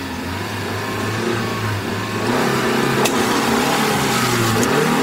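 Car engine running and being revved, its pitch wavering up and down and getting louder about two seconds in.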